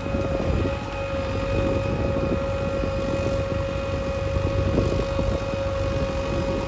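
JCB 3DX backhoe loader's diesel engine running steadily as it works, with a steady whine above the low rumble.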